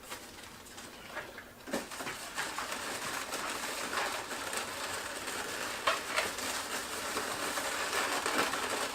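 Latex twisty balloons being handled and twisted, the rubber rubbing and squeaking with scattered sharp clicks, steadier and busier from about two seconds in.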